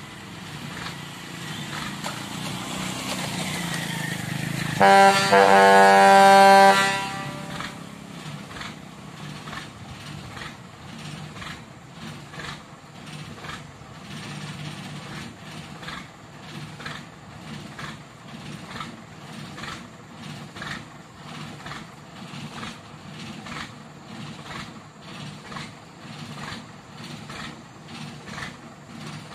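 Truck engine running and growing louder over the first few seconds, then a truck horn blows once, loud and steady for about two seconds, about five seconds in. After it, the truck engine keeps running with a regular pulsing.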